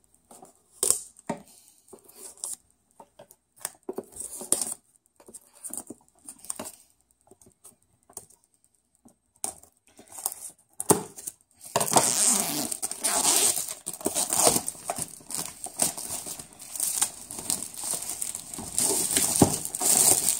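Plastic shrink-wrap on a laptop box being worked loose and torn off. There are scattered short crinkles and taps for the first dozen seconds, then, from about twelve seconds in, a continuous loud crackling of the film tearing and crumpling.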